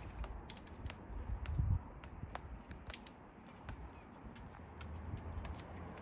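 Irregular sharp clicks and taps of parrots' beaks cracking seed and pecking at the feeding surface, several a second, with a brief low rumble about a second and a half in.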